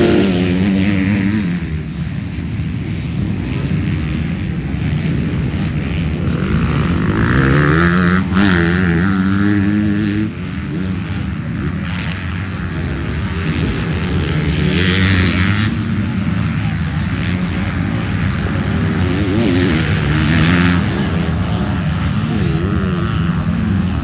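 MX2-class motocross bikes racing on a dirt track, their engines revving up and falling back again and again as the riders throttle through the course.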